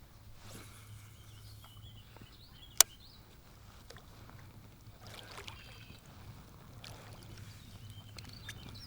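Kayak on the water: soft water swishing and splashing around the hull, with one sharp knock about three seconds in and faint bird chirps.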